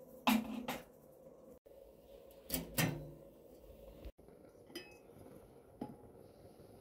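Knocks and clanks of cookware: a wooden spoon tapped twice on the rim of a metal cooking pot, then two louder clanks of metal cookware, and two lighter clicks near the end.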